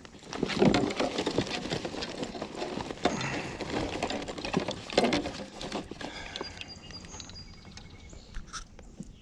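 Clattering knocks and rustling from gear being handled in a kayak while fetching pliers to unhook a swallowed bass, busiest over the first six seconds and then quieter.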